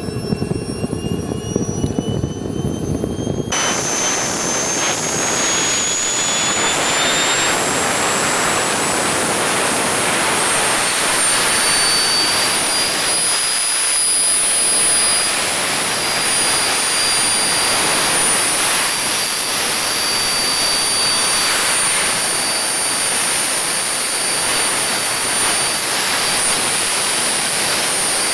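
Swiwin SW220B model jet turbine starting and running. For the first three and a half seconds a whine rises in pitch over a rough rumble. The sound then changes abruptly to a steady rushing roar with high whistling tones as the turbine runs at idle, around 40,000 rpm.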